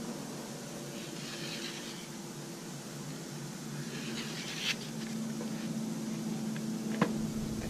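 Pencil scratching as lines are drawn along a metal square on pattern board, in two short strokes, over a steady shop hum. A single sharp tap near the end.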